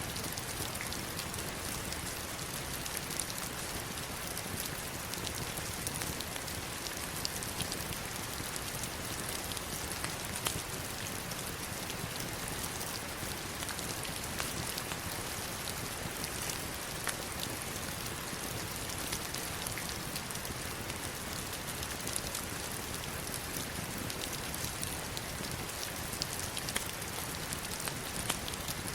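Heavy rain falling steadily onto stones, a dense even hiss scattered with many sharp individual drop impacts.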